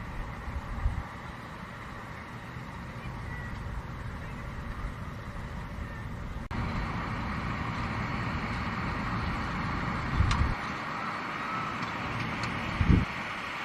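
Fendt 724 tractor with a Keiler Ropa II potato harvester working in the field: steady engine and machinery noise. The sound jumps a little louder about halfway through, and there are two brief low thumps near the end.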